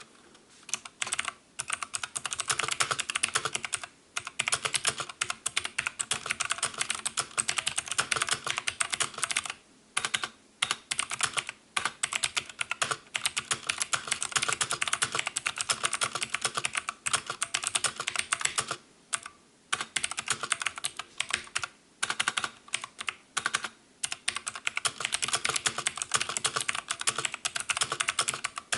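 Fast typing on an MK68 mechanical keyboard with clicky blue switches: a dense, continuous run of loud key clicks, broken by a few brief pauses.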